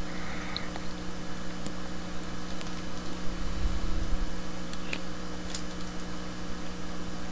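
Steady low electrical hum and hiss of room tone, with a few faint clicks scattered through it.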